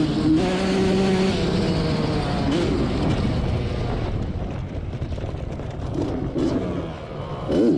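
Yamaha YZ85 single-cylinder two-stroke engine in a quad running under throttle at speed, then backing off as the quad slows, its note dropping and fading. Short revving blips about six seconds in and again near the end.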